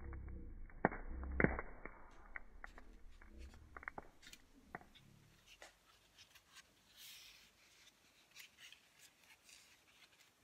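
Wood campfire crackling over a low rumble, with two sharp pops about a second in. After a cut, faint ticks, taps and a soft rustle from dry tinder fungus being handled over a metal tin.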